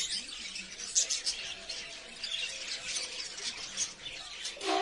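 Many small birds chirping densely and rapidly, with a louder, lower-pitched call near the end.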